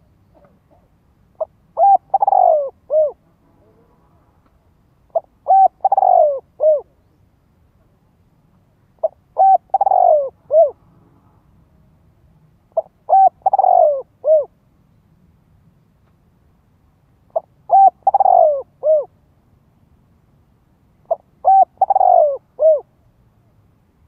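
Spotted dove cooing its repeated three-part song, six phrases about every four seconds. Each phrase is a couple of short notes, a longer falling coo and a short closing note. It is a calling dove of the kind used as a decoy to draw wild doves in.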